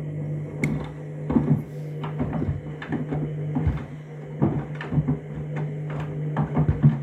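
Candy washing machine's drum motor running with a steady hum as the drum turns on the trainers cycle, with irregular knocks and thuds from trainers tumbling against the drum.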